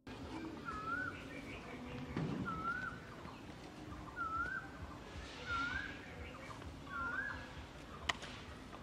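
A bird calling over and over, a short rising-and-falling whistle repeated every second or two. There is a single sharp click near the end.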